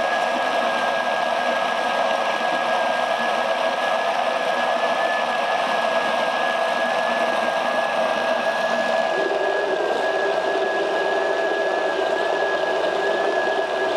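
Blender running steadily with a constant motor whine, puréeing cooked squash with a little of its broth. About nine seconds in, a lower note joins the motor sound.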